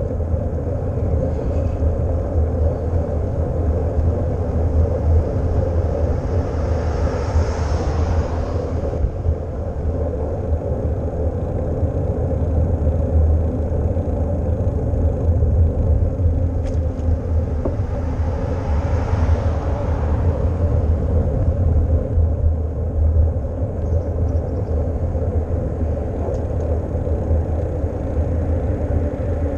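Wind rumbling on a bicycle-mounted GoPro's microphone, with steady road noise from the moving bike. Twice the hiss swells and fades as vehicles pass, about a quarter of the way in and again about two-thirds in.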